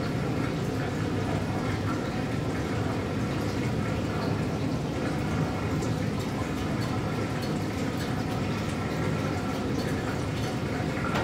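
Water running steadily into a darkroom sink's temperature-controlled water bath, with a few faint clicks.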